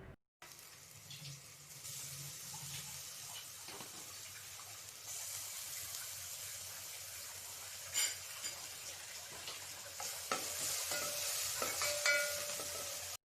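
Finely chopped onion sizzling in hot oil in a pan while being stirred, with a few light clicks of the stirring utensil against the pan.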